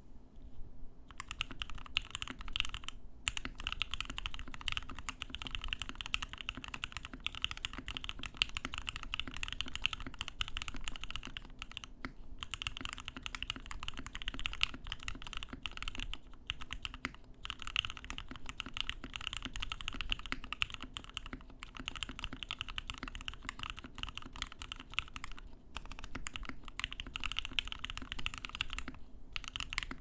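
Fast, continuous typing on a custom 60% mechanical keyboard: a KBDfans Tofu case with an o-ring gummy-mounted aluminium plate, lubed Gateron Black Ink V2 linear switches, PBT keycaps and a DSA spacebar, the case filled with shelf-liner foam to damp the typical Tofu hollowness. The keystrokes start about a second in and run as a dense stream, broken by a few short pauses.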